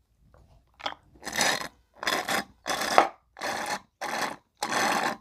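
Repeated slurping through a straw from a nearly empty Yoo-hoo drink box, about six hissing slurps in a row, each roughly half a second long, as the last drops are sucked up with air.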